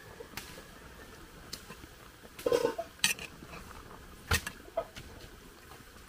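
Metal ladle clinking and scraping against an aluminium cooking pot as soup is stirred: a few scattered knocks, the loudest about two and a half seconds in, again at three, and past four seconds.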